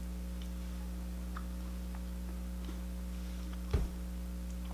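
Steady low electrical hum with a few faint ticks, and one short knock near the end.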